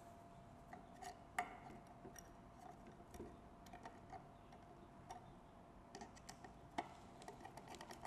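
Faint, scattered clicks and ticks of a screwdriver driving a small screw through a metal bracket into a wooden birdhouse roof, over a faint steady hum.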